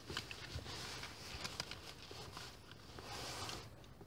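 Faint handling noise from a phone held inside a car: soft rustling with scattered light clicks, and a brief louder rustle about three seconds in.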